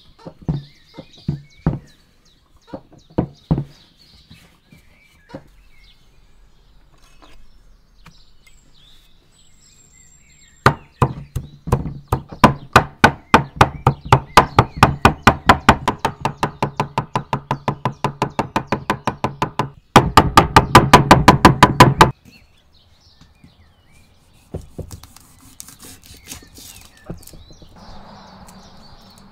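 Cleaver chopping fresh dill on a wooden cutting board: a fast, steady run of knocks, about four or five a second, that speeds up for its last couple of seconds and then stops. A few scattered knocks come before it.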